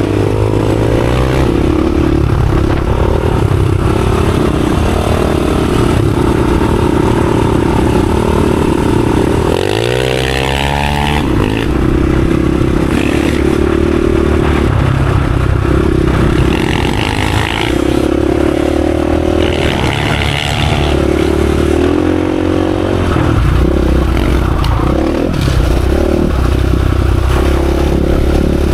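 Dirt bike engine running hard while riding, the revs rising and falling throughout, with a sharp drop and quick climb in revs about ten seconds in.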